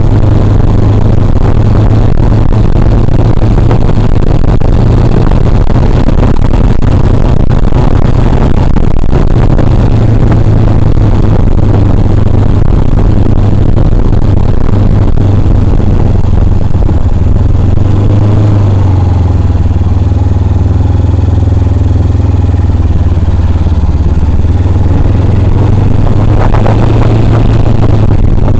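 Motorcycle engine running steadily under way, with a dense rushing noise over it; its low drone drops in pitch for several seconds in the second half, then comes back up.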